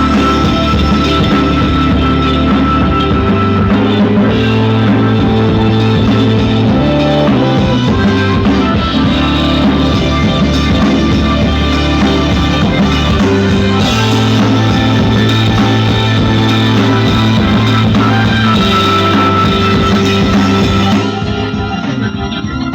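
Loud music with a heavy bass line and guitar, played through a pair of 300-watt 5200 amplifiers and their speakers in a sound test; it drops in level near the end.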